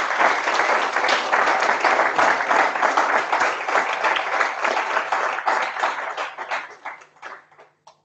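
Audience applauding, a dense patter of many hands clapping that thins out to a few last claps and dies away near the end.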